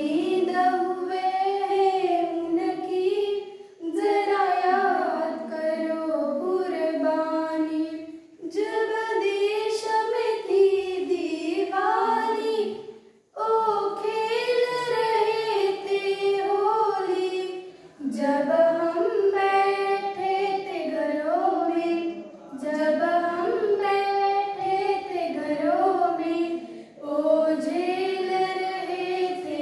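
Schoolgirls singing a song, unaccompanied, in phrases of about four to five seconds with short pauses for breath between.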